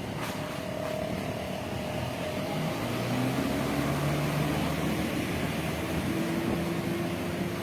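An engine running steadily at low speed over a constant rushing background, its pitch stepping up a little in the second half.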